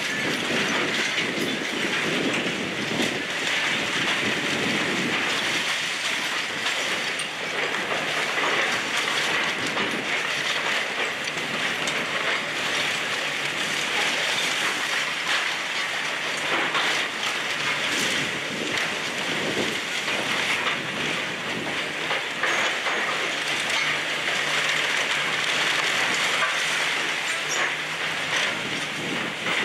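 Demolition excavators working grapple attachments against a brick building, their diesel engines running under a continual clatter and rattle of bricks, wood and debris being pulled down and dropping, with scattered knocks and crunches.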